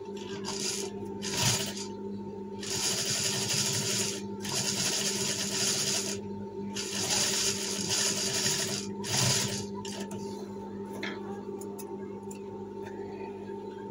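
Industrial lockstitch sewing machine stitching in several runs of one to two seconds, its motor humming steadily between runs. Over the last few seconds the machine is still, leaving the hum and a few light clicks.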